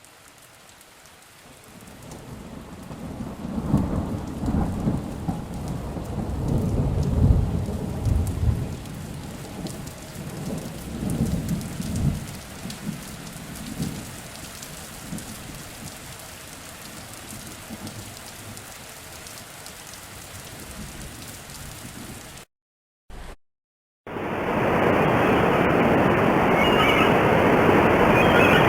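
Thunderstorm: steady rain with deep rolling thunder rumbles through the first half, which then fade, leaving the rain alone. After a brief cut to silence near the end, a louder steady rushing noise takes over.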